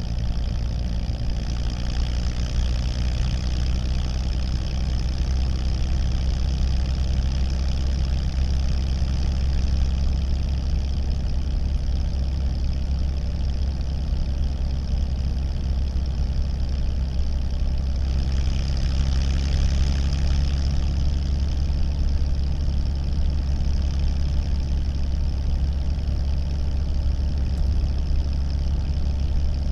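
1937 Plymouth's flathead straight-six engine running steadily, heard from inside the car. It holds an even, low speed with no revving, and a little more hiss rises about two-thirds of the way through.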